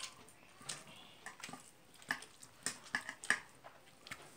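Eating rice by hand from a steel plate: short, irregular wet clicks and smacks, about eight in four seconds.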